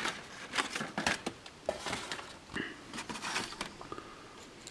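Paper rustling and crinkling in short scattered bursts as old photographs are handled, with small clicks between.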